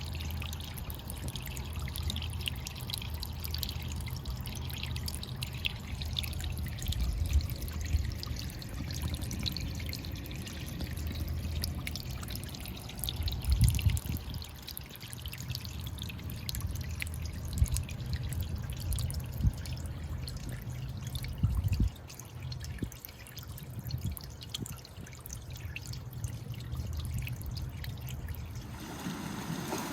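Small sea waves washing against a rocky shore, water trickling and dripping between the stones with a steady low rumble, and a few louder surges as waves come in.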